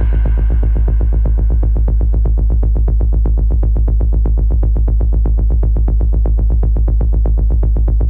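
Electronic background music: a fast, steady synthesizer pulse over a heavy bass.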